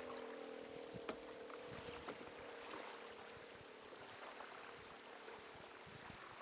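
Faint drone of a distant motorboat's engine, fading away over the first couple of seconds, over a soft wash of water and wind. A few light clicks of fishing-rod and reel handling come about one and two seconds in.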